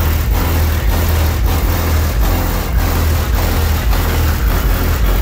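Bass-heavy music played loudly on a car's aftermarket sound system, the deep bass the strongest part, with a steady beat.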